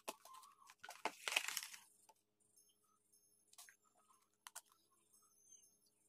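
Faint handling noise of a smartphone and its cardboard packaging: scattered clicks and taps, with a brief scraping rustle about a second in, and a couple more sharp clicks later.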